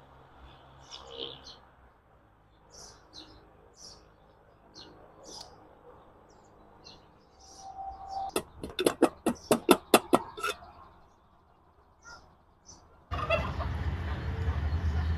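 Small birds chirping faintly, then a loud, rapid run of about nine sharp clucking calls over two seconds. Near the end the sound switches suddenly to a steady low hum with hiss.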